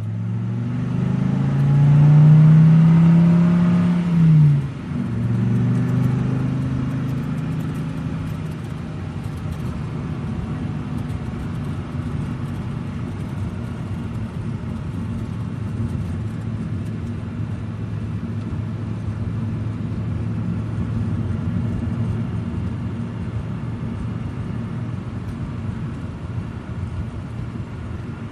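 1940s car engine pulling away: the engine note rises, drops sharply about four seconds in as the car changes gear, then settles into a steady drone as the car drives on at an even speed.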